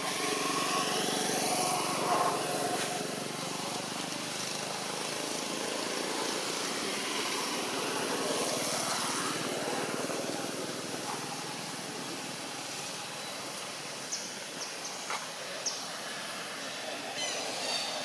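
Steady outdoor background noise, with a few short sharp clicks near the end.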